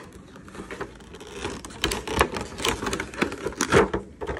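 Crinkling and clicking of plastic as a clear plastic Cirkul water bottle is handled in its packaging. The clicks come in an irregular quick run that gets busier and louder about a second and a half in.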